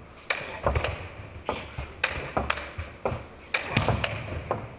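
Table tennis ball in a rally: sharp, short knocks as it strikes the bats and bounces on the table, about two a second, as a defensive chopper exchanges with an attacker.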